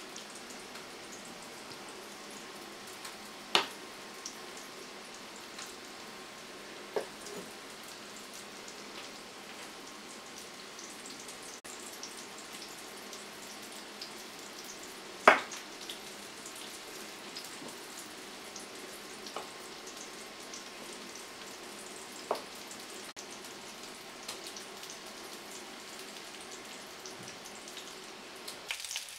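Schnitzel frying in hot fat in a pan: a steady sizzle, broken by a few short sharp clicks and knocks, the loudest about halfway through.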